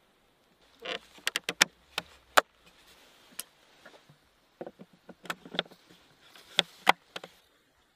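Sharp wooden clacks and knocks from a wooden skewer-maker box and its lid being handled and set in place, in two bunches: several quick knocks about a second in, then more from about halfway on.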